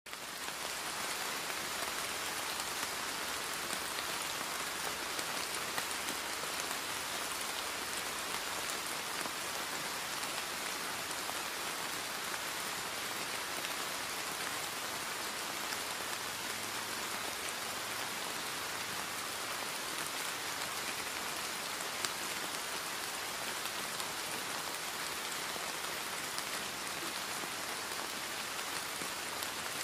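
Steady recorded rain: an even, unbroken hiss of falling rain, used as the masking layer of a subliminal affirmation track.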